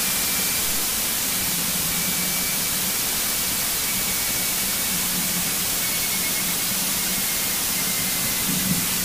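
Steady cabin noise of a single-engine Cessna rolling along the runway, its engine and propeller heard as an even hiss through the headset intercom, with a faint high whine that drifts slowly lower.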